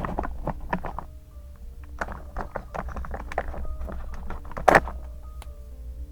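Quick taps and rustles of paper and stationery being handled, with one louder knock about five seconds in, over soft background music with sustained notes.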